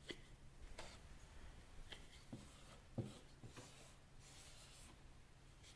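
Round-ended spatula scraping soft clay off a board and pressing it into a plastic printer cartridge: a series of faint scrapes and soft knocks, the loudest about three seconds in.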